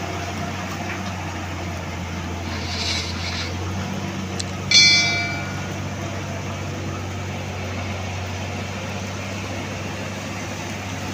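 A heavy truck's diesel engine runs steadily at low revs as the loaded truck pulls away. A brief hiss comes about three seconds in. Near the middle there is a sudden ringing clank, the loudest sound, which dies away quickly.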